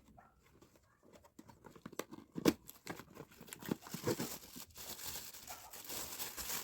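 Packaging being handled and opened: crinkling and tearing with many small sharp clicks, and one louder snap about two and a half seconds in.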